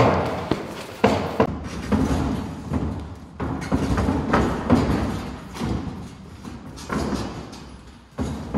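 A string of irregular dull thuds from padded boxing gloves landing and feet shuffling on the ring canvas during sparring. The knocks come in quick clusters, then more widely spaced.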